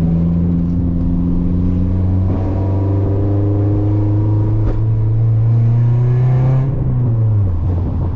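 Toyota Corolla's four-cylinder engine running while the car is driven. The engine note climbs slowly as it pulls, then drops away near the end as the revs fall.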